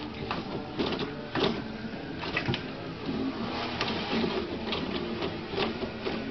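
Toilet paper rustling and tearing off the roll as a cat pulls and bites at it: a run of irregular short papery rips and rustles.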